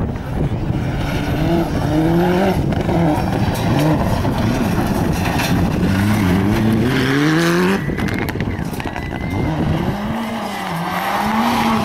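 Rally car engine revving hard on loose gravel, its pitch climbing and then dropping sharply at gear changes several times, over a rush of noise.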